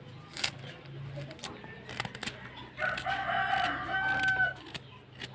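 A rooster crows once, starting about three seconds in and lasting nearly two seconds, ending on a held note; it is the loudest sound. Around it, light crisp clicks of a small knife slicing shallot and ginger held in the hand.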